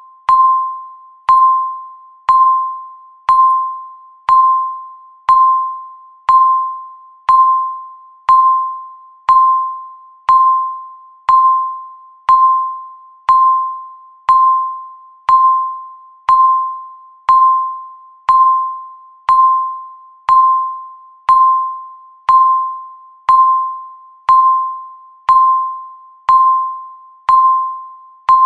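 Countdown timer's electronic beep: one clear, mid-pitched tone struck once a second, each beep starting sharply and fading out before the next, marking off the seconds of the countdown.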